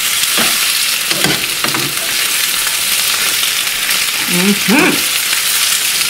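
Cubed chicken breast sizzling steadily in oil in a nonstick frying pan, with a few scrapes and knocks of a spatula turning the pieces in the first two seconds.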